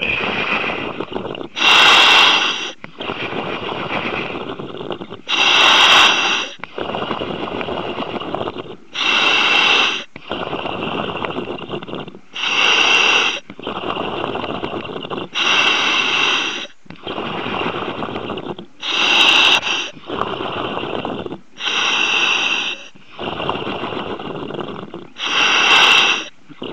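A diver breathing through a demand regulator, heard over the diving communications line. A loud hissing breath comes about every three to four seconds, with a quieter rushing sound in between.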